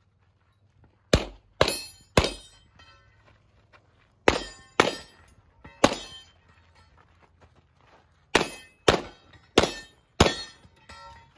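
Suppressed gunshots hitting steel targets, each with a sharp crack and a short metallic ring. Three quick shots, three more, then five about half a second apart.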